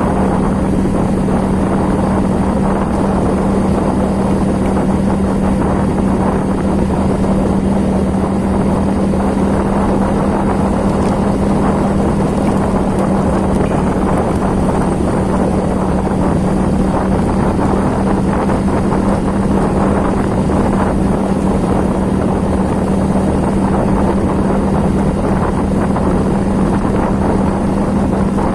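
A motor running steadily at constant speed: an even hum under a loud rushing noise, with no change in pitch or level.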